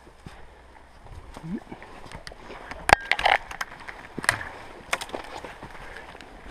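Dense, dry scrub being pushed through on foot: twigs and branches snapping and scraping past, and footsteps crunching on leaf litter and loose stones, with one sharp crack about three seconds in.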